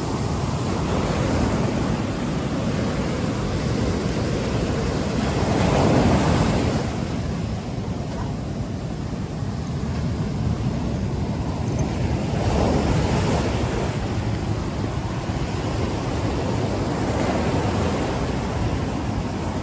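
Ocean surf breaking and washing up a sandy beach beside rocks, a steady rush that swells twice as waves come in.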